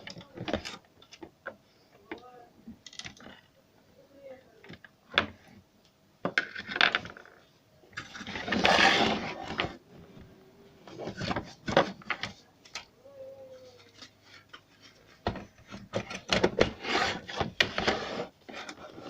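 Clicks, taps and rattles of small plastic and metal parts being handled and worked on, with a longer scraping, rustling stretch about halfway through.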